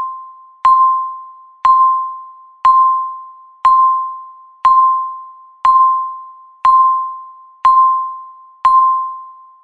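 Countdown timer beeping once a second: a single pitched, chime-like beep that starts sharply and fades away before the next, nine times in a row.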